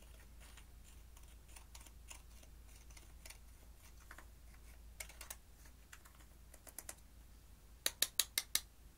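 Metal spatula scraping and crumbling pressed eyeshadow out of its plastic compact: a run of small scratchy clicks. Near the end, five quick sharp taps as the upturned compact is knocked to shake the loose powder out.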